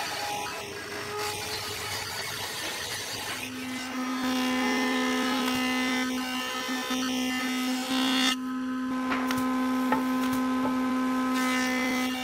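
Stationary woodworking machinery cutting hardwood boards: a rough cutting noise at first, then from a few seconds in a steady machine hum with a high whine over it, which dips briefly about two-thirds of the way through.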